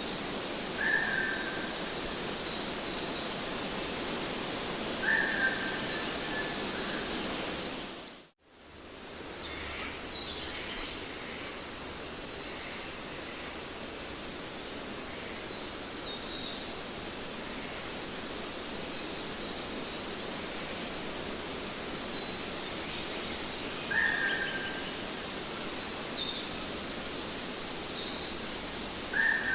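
Steady outdoor background noise with birds chirping now and then: short repeated calls, some higher and some lower. The sound drops out briefly a little over eight seconds in, then resumes.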